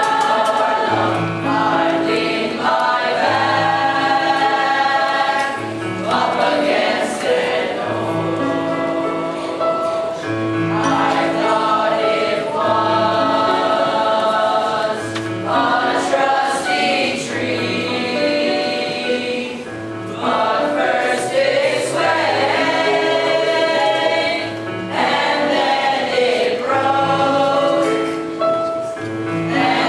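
Middle school chorus singing in parts, with low notes repeating in a steady pulse beneath the voices.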